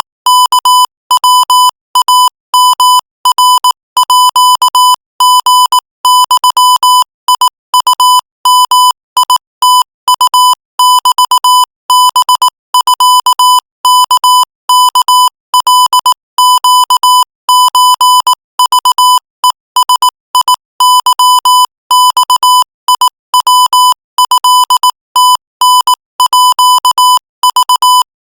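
Morse code sent at 22 words per minute as a single steady-pitched beep, keyed on and off in rapid short and long pulses, with brief gaps between characters and words.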